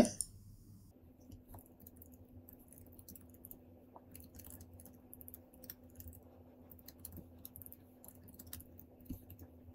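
Faint computer keyboard typing: light, irregular key clicks over a steady low hum.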